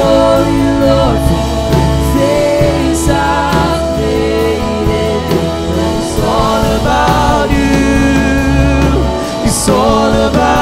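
Worship music with singing: a slow song over sustained bass notes, with a few bright crashes.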